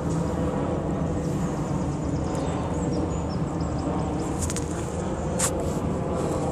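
Steady low rumble of distant traffic, with a few faint high chirps in the middle and a sharp click about five and a half seconds in.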